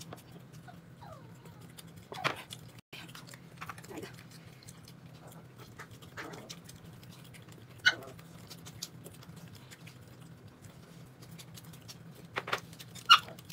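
A dog making a few short sounds, several seconds apart, over a low steady hum.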